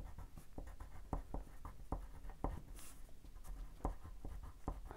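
A Crayola Swirl wax crayon being rubbed on paper to swatch a colour: faint, with many short, irregular strokes.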